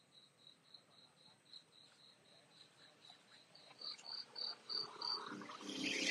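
An insect chirping in a steady high-pitched pulse, about four chirps a second, growing louder about four seconds in. Near the end a rustling noise rises over it.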